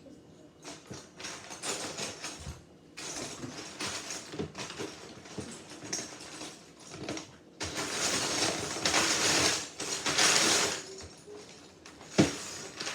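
Loose plastic Lego bricks clicking and rattling as they are handled and snapped together, with a louder stretch of rummaging through the box of bricks in the middle and a sharp click near the end.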